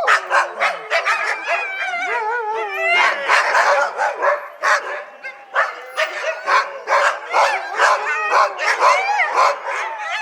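Dog barking and yipping in a rapid, near-continuous run, mixed with whining calls that rise and fall in pitch.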